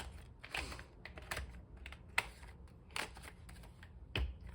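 Paper planner pages being handled: short rustles and a handful of separate sharp clicks, the sharpest about two seconds in, as pages are worked onto the plastic discs of a disc-bound planner.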